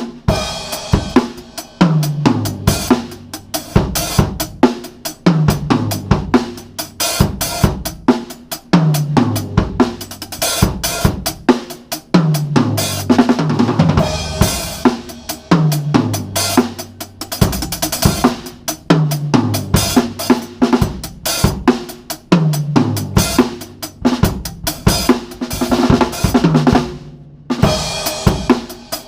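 Drum kit played with the snare wires on: a busy beat of snare, bass drum, hi-hat and cymbal hits, with a low drum note that drops in pitch every couple of seconds. The playing stops briefly near the end and then starts again.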